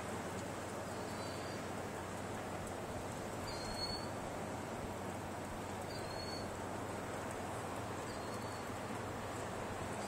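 Steady rushing outdoor noise of wind and surf along the shore. A short, faint high chirp sounds four times, about every two and a half seconds.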